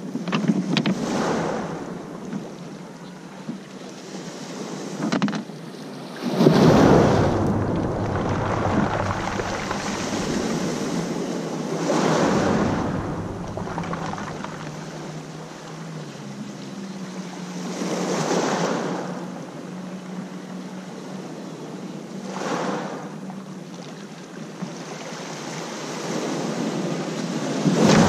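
Black Sea surf: waves breaking and washing onto the shore, surging about every five or six seconds.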